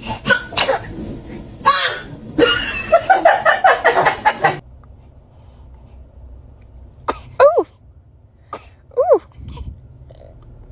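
Newborn baby sneezing several times: short, sharp sneezes, the later ones each trailing off in a brief falling high-pitched voice sound.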